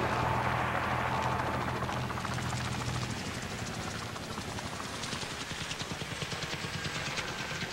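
AH-1 Cobra attack helicopter in flight: steady turbine and rotor noise with a fast, even rotor chop, easing down slightly.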